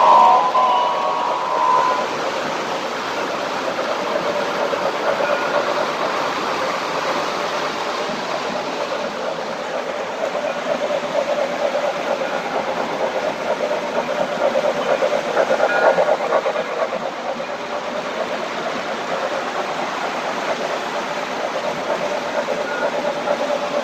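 O-gauge model trains rolling steadily around three-rail track: the running of their wheels and motors, swelling about two-thirds of the way through as a train passes close. A short steady tone sounds in the first couple of seconds.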